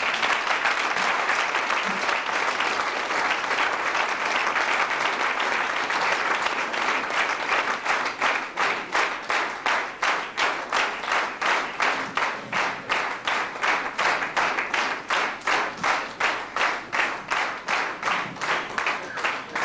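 Large audience applauding: a dense spread of clapping that, about eight seconds in, falls into rhythmic unison clapping at about three claps a second.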